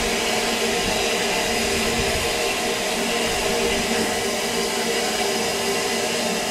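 Narrow-gauge steam locomotive hissing steadily as the train moves slowly along a station platform.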